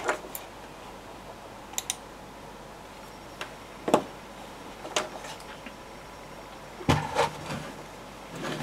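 Handling noises from the Sonos PLAY:1's circuit board and plastic frame being moved about on a desk: a scattered series of light clicks and knocks, the loudest about four seconds in and a small cluster near the end.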